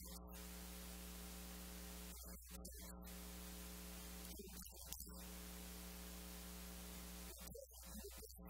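Faint, steady electrical hum with hiss on the recording, cut by a few brief dropouts.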